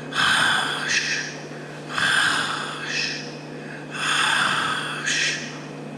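A man imitating snoring into a microphone: three rasping snore breaths about two seconds apart, each followed by a shorter second sound.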